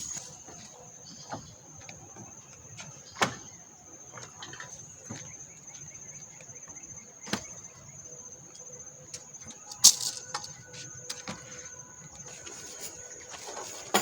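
A steady high-pitched insect drone, with a few sharp clicks and knocks scattered through it, the loudest about ten seconds in.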